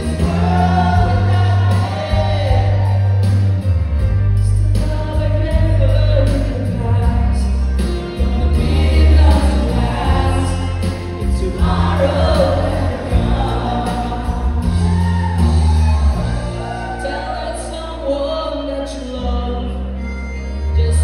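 A man singing live into a microphone through PA speakers, with musical accompaniment and a heavy bass line.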